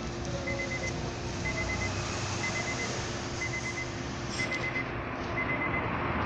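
A car's electronic warning chime: a short high beep repeating about once a second over a steady background hiss.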